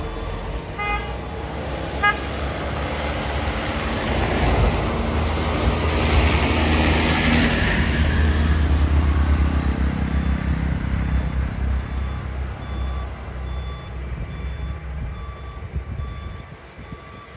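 Heavy truck's diesel engine running, swelling to its loudest in the middle and then fading as it goes past. Two short tones sound about a second apart near the start. In the second half, a reversing beeper beeps at an even pace, about one and a half beeps a second.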